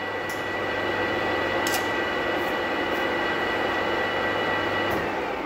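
Manual lathe running under power, a steady motor hum and high gear whine with a few faint ticks, then switched off about five seconds in and starting to coast down as the chuck slows.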